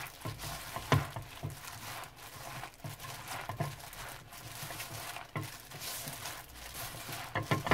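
A hand in a disposable plastic glove kneading blanched aster greens with seasoning in a frying pan: crinkling of the plastic glove and rustling of the wet greens, with a few sharp knocks against the pan.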